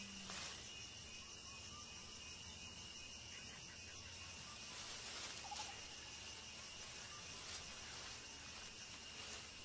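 Faint night ambience: a steady high insect drone over hiss, with a couple of soft clicks.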